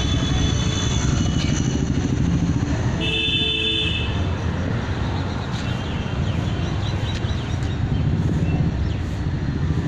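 Street traffic noise: a motor vehicle engine runs close by with a steady low rumble, and a horn sounds briefly about three seconds in.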